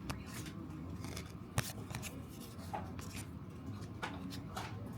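Trading cards being handled and flicked through: a run of soft clicks and rustles, with one sharper click about a second and a half in.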